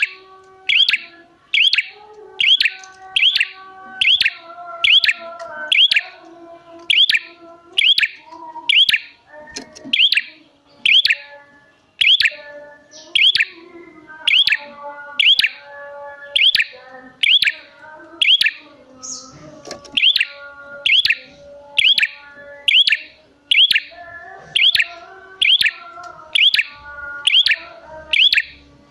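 Prenjak (prinia) singing a loud, sharp chirp repeated about once a second, over softer, lower twittering notes, in a lure call meant to draw other prenjak into answering.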